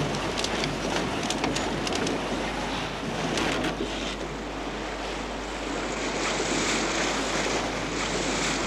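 Water rushing and splashing along the hull of a sailing barge under way, with wind, and a few short clicks or knocks in the first half.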